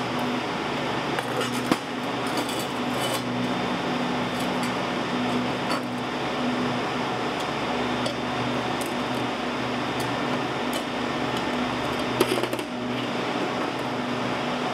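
A few light metallic clinks of steel pieces and pliers against a steel workbench, the sharpest about two seconds in and again near the end, over a steady mechanical hum and hiss.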